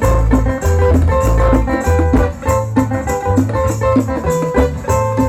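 Instrumental cumbia music: a steady shaker rhythm over bass and sustained melody notes, with no singing.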